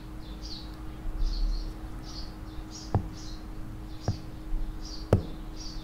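Stylus tip in a nib cover scribbling back and forth on a phone's smooth glass screen: soft, slightly squeaky rubbing strokes, about two a second, with three sharp taps of the tip in the second half.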